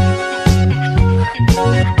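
Upbeat background music with a steady beat, about two beats a second, over a bass line.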